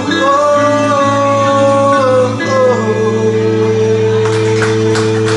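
A singer holds the last wavering note over a karaoke backing track for about two and a half seconds, then the track's closing chord rings on steadily.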